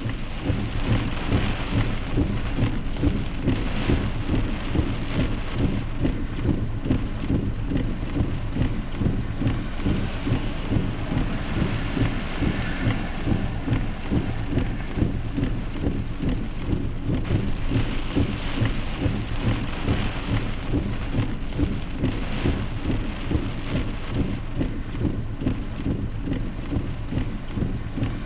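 Steady heavy rain with thunder.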